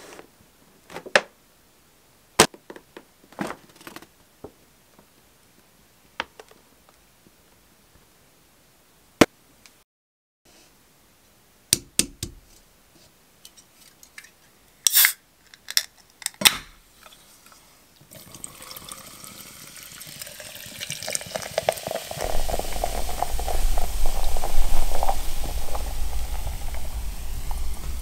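A paper takeout bag crackling in short, scattered crinkles as it is handled, then a few sharp clicks from a soda can. For the last third, soda is poured into a stainless-steel tumbler: a steady fizzing hiss that swells, with a low rumble as the tumbler fills.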